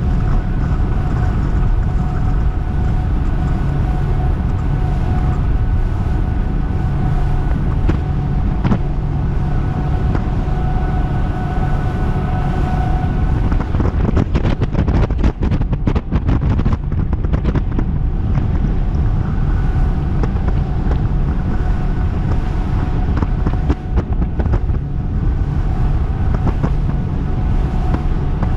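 Twin outboard motors on a RIB boat running at high speed, a steady engine drone under rushing wind on the microphone and water noise from the hull. About halfway through, several seconds of gusty buffeting and knocks cover the engine tone, which comes back clearly near the end.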